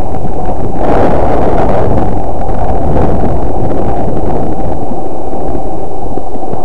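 Wind buffeting the camera's microphone as the snowboarder rides downhill: a steady, very loud rumbling rush that overloads the recording.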